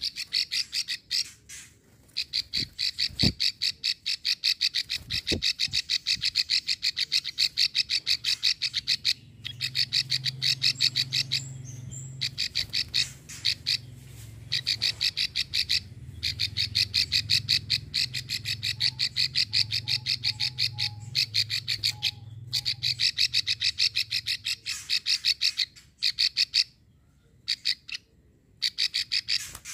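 Female prenjak sawah (a prinia) giving its long 'ngekrek' klik call: long runs of rapid, dry clicks that stop for short pauses and start again.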